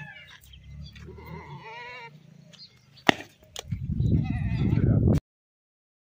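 Young Kota goat bleating twice with a wavering, quavering call: once about a second in, and again about four seconds in under a loud low rumble. A sharp click comes between the calls, and the sound cuts off just before the end.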